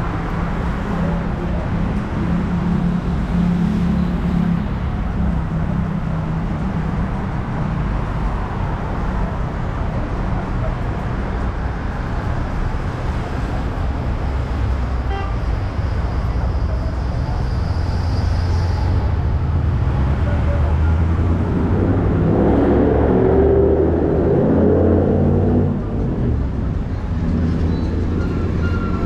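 Busy city street traffic: cars and buses running along a multi-lane avenue, a steady rumble of engines and tyres. About three quarters of the way through, a louder vehicle engine passes close by for a few seconds.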